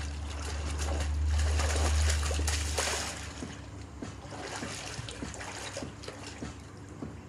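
Pool water splashing and churning as a swimmer goes under and resurfaces, with a low rumble during the first three seconds.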